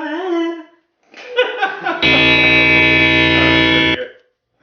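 A wavering vocal noise, then a loud distorted electric-guitar chord held for about two seconds that cuts off abruptly.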